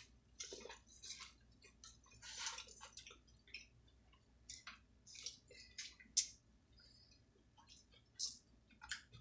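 Close-up mouth sounds of someone eating: chewing with irregular short smacks.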